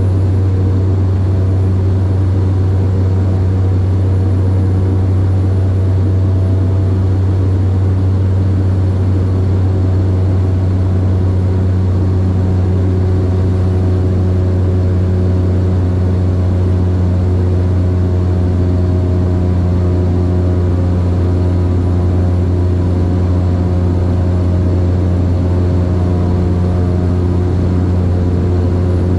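Cabin noise of a Cessna 208 Grand Caravan in flight: its single PT6A turboprop engine and propeller making a loud, steady low drone with a constant hum.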